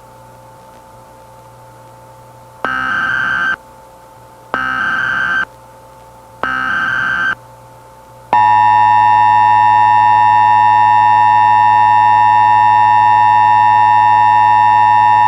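Emergency Alert System broadcast tones: three short bursts of SAME header data, each about a second long with a second's gap between. About eight seconds in comes the steady, harsh two-tone EAS attention signal (853 and 960 Hz together), the loudest sound, signalling that an emergency voice message follows.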